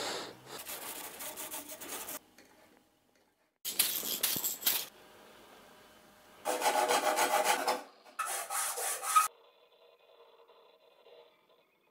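Rubbing and rasping on the carved wooden wand in four short bursts of quick strokes, with pauses between them.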